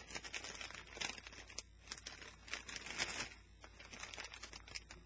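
Doritos crisp bag crinkling and rustling in irregular crackles as it is handled.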